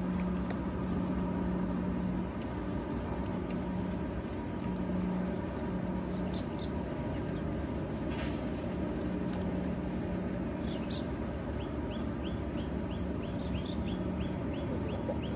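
Steady mechanical hum with a constant low tone. Short high chirps from a bird start about three-quarters of the way through, at about two a second.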